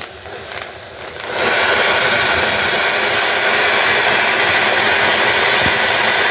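An 'árvore de Natal' ground firework fountain going off: a softer hiss as it lights, then about a second in a loud, steady rushing hiss as the fountain sprays sparks.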